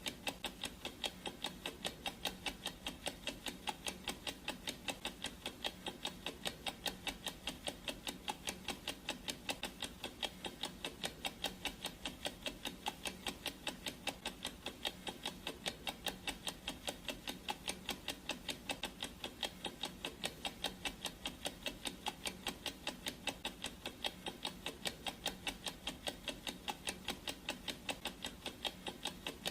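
Clock ticking sound effect of a countdown timer, a steady run of evenly spaced ticks.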